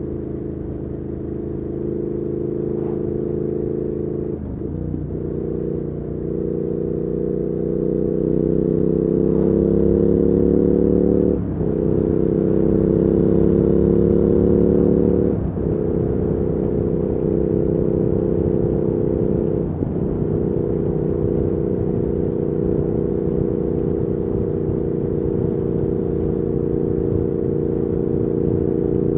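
Triumph Speed Twin 1200's parallel-twin engine through an aftermarket Weslake Shorty Pro exhaust, heard from the rider's seat with wind noise. The revs climb steadily under throttle, with brief breaks at gear changes, then hold steady at cruising speed in the second half.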